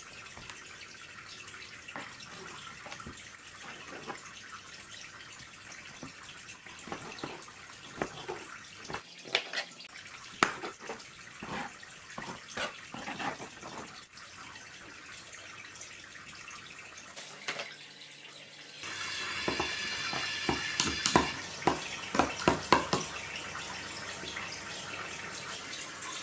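Water splashing and dripping in a kitchen sink, with scattered clinks and knocks of handling. For a few seconds near the end, a tap runs louder.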